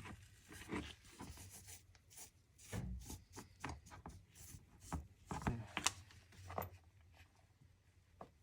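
Irregular light knocks, clicks and scraping of hands working with parts and tools, most frequent in the middle and thinning out near the end.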